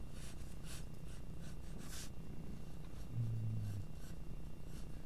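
Graphite pencil scratching across paper in a series of short sketching strokes over a steady low hum. A brief low hum sounds about three seconds in.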